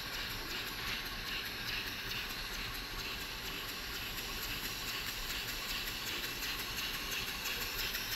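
Model oscillating engine of Henry Maudslay's design running slowly on compressed air: a steady hiss of air through its rotary valve and exhaust, with a faint regular pulsing from the strokes.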